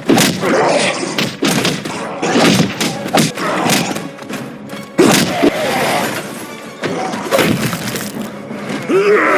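Film fight sound effects: a rapid, irregular string of heavy punches and smashing, breaking impacts over a music score, the audio loud and blown out.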